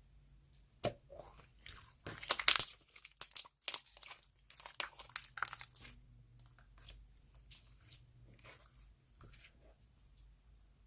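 Soft clay slime being squeezed and worked by hand: irregular crunchy clicks, busiest from about two to six seconds in, then sparser.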